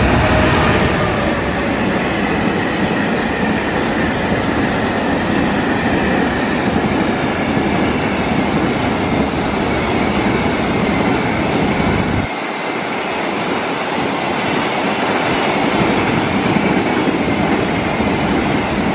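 An EF210-300 electric freight locomotive passes at speed, then a long string of container flat wagons rolls through with a steady clatter of wheels on rail. The low rumble drops away about two-thirds of the way through.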